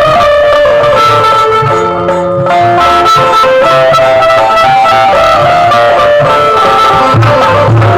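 Instrumental music: a melodic lead instrument playing a stepping tune in held notes, over low drum beats.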